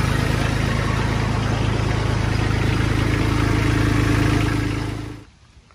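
Kubota LX2610's three-cylinder diesel engine idling steadily. The sound cuts off suddenly about five seconds in, where the recording drops out.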